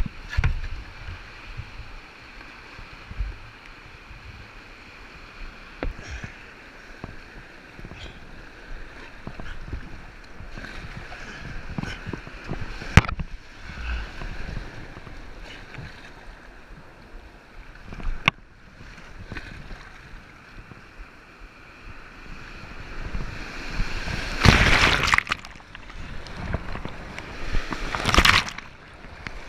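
Rushing white water heard from a kayak running an artificial rapid, with paddle splashes and two sharp knocks. About 24 seconds in and again near the end come loud surges of water as waves break over the kayak's deck.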